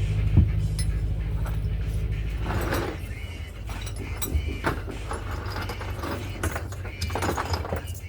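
Metal tools clinking and tapping on engine parts, in scattered sharp clicks. A low steady mechanical hum underneath fades out about three seconds in.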